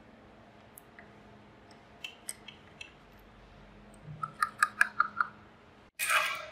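Small metallic clicks and clinks of rusty lever tumblers in an antique lock being pried loose and lifted out, a few faint ticks and then a quick run of about seven sharp, ringing clinks around four to five seconds in. A short burst of noise follows near the end.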